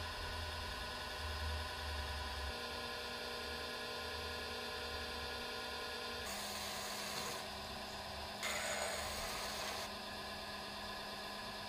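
Electric pottery wheel's motor humming steadily, its pitch dropping slightly about six seconds in. Twice in the second half comes a spell of hissing rubbing from sponges worked over the wet clay of the spinning bowl.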